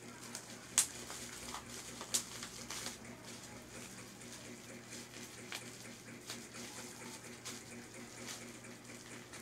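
Clear plastic packaging crinkling and rustling as a parcel is unwrapped by hand, with a couple of sharper crackles about one and two seconds in.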